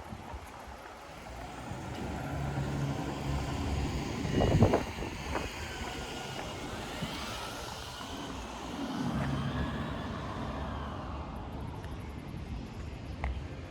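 A motor vehicle's engine running, swelling twice as it passes, with one sharp knock about four and a half seconds in.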